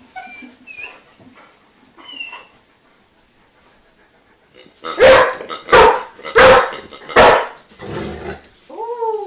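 Curly-coated black dog barking four times in quick succession, loud and about a second apart, at a new plush piglet toy she is unsure of. A few faint high squeaks come before the barks.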